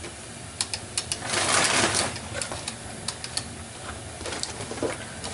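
Plastic toy cash register clicking and rattling under a small child's hands: a few sharp clicks, a longer rattle a little after one second in, then more scattered clicks.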